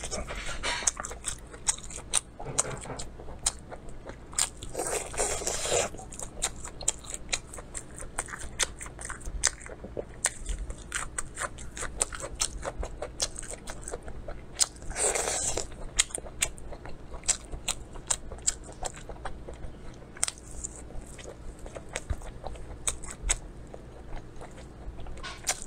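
Close-miked eating of a sauce-glazed food: a steady run of wet mouth clicks and smacks from chewing, with two longer, louder bursts about five and fifteen seconds in.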